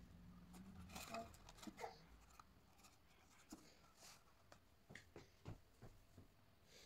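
Near silence, with faint scattered rustles and light taps of a cardstock box being handled and set down on a cloth-covered table.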